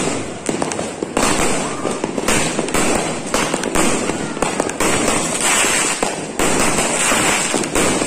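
Aerial fireworks shells bursting in a continuous barrage: many overlapping bangs in quick succession with no break.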